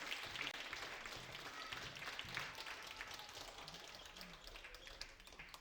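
Audience applauding, dense clapping that steadily dies away.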